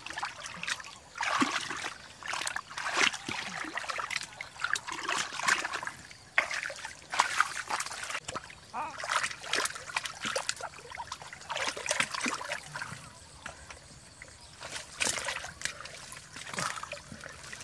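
Hands splashing and sloshing in shallow muddy water, groping by hand for fish: irregular splashes, dribbles and slaps, some louder than others.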